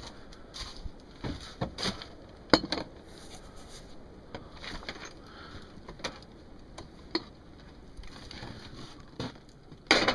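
Scattered, irregular sharp clicks and knocks over a steady low hiss, the loudest about two and a half seconds in and another just before the end.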